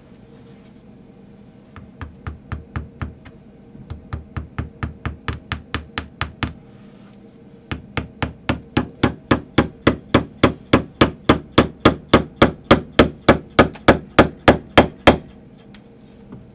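Tack hammer driving brads through upholstery fabric into a chair arm: three runs of quick, even taps, the last and longest at about four blows a second and growing louder toward its end.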